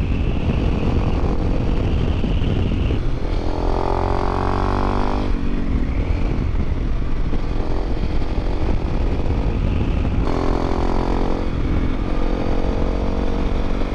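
Honda CRF250L Rally's single-cylinder engine running under way, with a heavy low rush of riding wind. The engine note comes up clearly twice, about three seconds in and again about ten seconds in.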